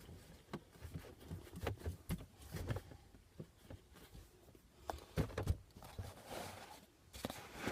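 Light handling noises from a car gear knob and its leather gaiter being turned over and felt: scattered soft clicks, taps and rustling, with a couple of firmer knocks about five seconds in and a sharp click at the very end.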